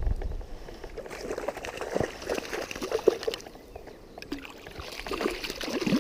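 Irregular small splashes and sloshes of water from a small hooked trout being played and brought in through a shallow stream.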